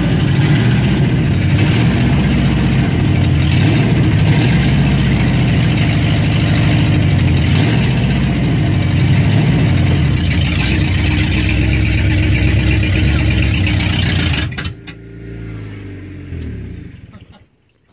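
Engine of a Dodge truck stuck in mud running hard at high revs, trying to drive out while under tow. About three-quarters of the way through it drops sharply to a much quieter, lower running, then falls away near the end.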